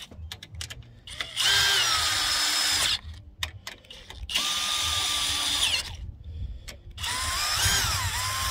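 Cordless drill run in three short bursts on a Solera power awning motor's gearbox, its whine shifting in pitch as it loads, with sharp clicks between the runs.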